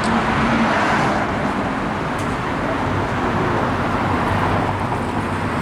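Steady road traffic noise, a continuous rush of cars going by.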